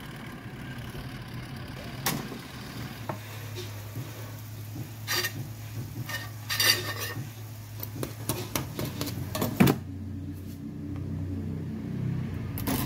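Air fryer running with a steady low hum that comes in a few seconds in, with several sharp knocks and clinks as the basket is handled and the timer dial is turned.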